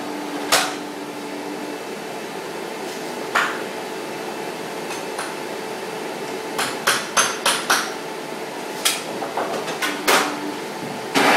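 Makita table saw blade spinning down at the start, then sharp wooden knocks and clacks from boards and the saw being handled, with a quick run of about five knocks around seven seconds in. The saw motor starts up again just before the end.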